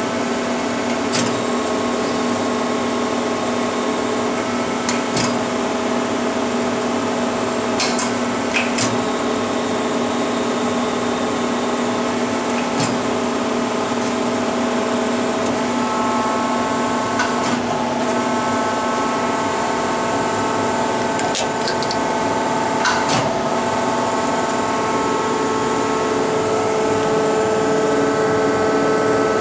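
Bridgeport Powerpath 15 CNC lathe switched on and idling with the spindle stopped: a steady machine hum made of several steady tones, which shift slightly in pitch a couple of times. A few light clicks come through at scattered moments.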